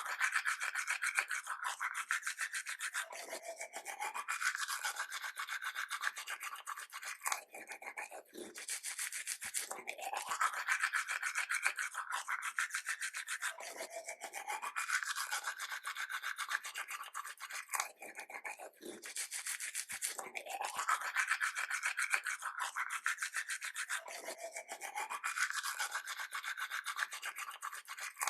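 Toothbrush scrubbing teeth in fast back-and-forth strokes, making a steady wet hiss. The same pattern of strokes comes round about every ten seconds.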